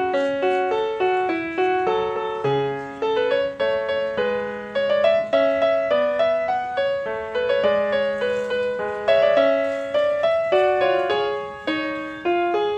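Instrumental piano music: a steady flow of struck notes and chords, each ringing and fading, several a second.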